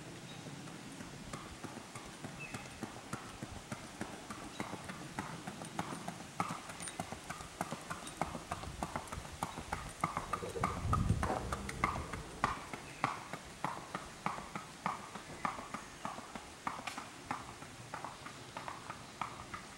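Hooves of a ridden horse clip-clopping on a paved road in a steady rhythm. They grow louder as the horse passes close about ten seconds in, with a brief low rumble there, then fade as it moves away.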